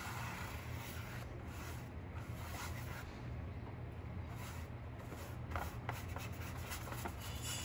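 Paintbrush bristles brushing orange paint across a paper plate: soft, irregular scratchy rubbing strokes over a faint steady low hum.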